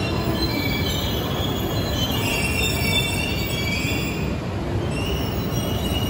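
Coupled E2 and E3 series Shinkansen trains rolling slowly into the station with a steady rumble. High-pitched squeals come and go, loudest about two to three seconds in and again near the end.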